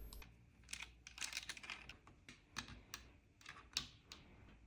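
Small plastic LEGO pieces being handled and pressed together by hand, giving a string of light, irregular clicks, the sharpest one a little before the end.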